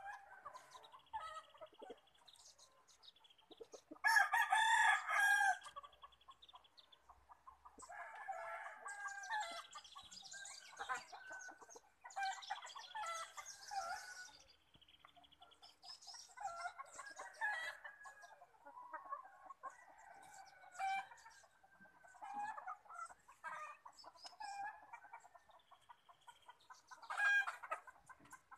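A rooster crowing, loudest about four seconds in, with further crowing and clucking from chickens every few seconds.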